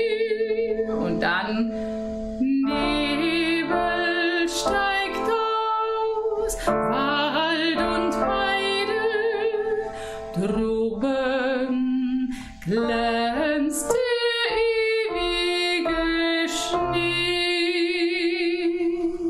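A woman singing a slow melody in a trained voice with vibrato: long held notes in phrases with short breaths between them.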